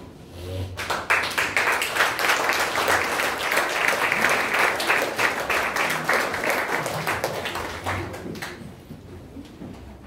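Theatre audience applauding, starting about a second in and dying away near the end.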